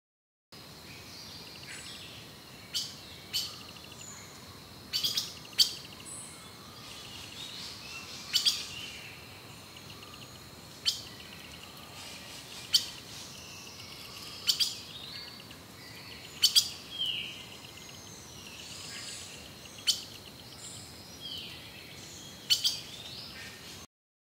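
Forest ambience: birds give sharp chirps every second or two, some in quick pairs, and a couple of falling, slurred calls, over a steady high tone and a soft hiss. The sound cuts off abruptly near the end.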